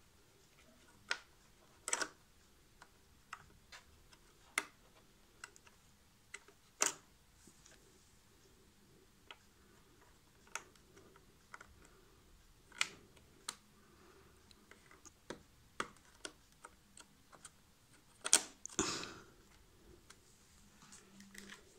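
Scattered small clicks and taps of a laptop DDR4 RAM module being handled and seated in its slot inside an open laptop, with a louder scraping rustle near the end.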